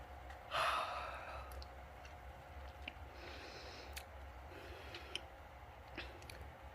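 A breathy yawn exhale about half a second in, strongest at its start and trailing off, followed by a softer breath around three seconds in, with a few small clicks.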